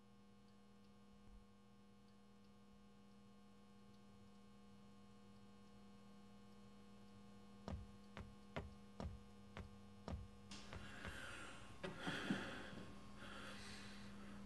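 A steady low hum that slowly grows louder, with a run of about seven sharp clicks a little past halfway and a rough, breathy hiss that comes and goes over the last few seconds.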